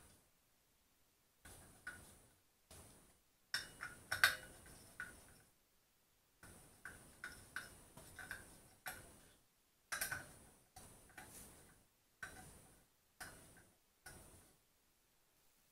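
T-handle hex key working the bolts of a motorcycle brake rotor while they are tightened: short, sharp metallic clicks with a brief ring, coming at irregular intervals and sometimes in quick runs of three or four.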